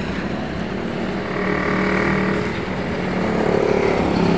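A motor vehicle's engine running as it passes on the road, over a steady background noise. The engine gets louder about a second in and again near the end.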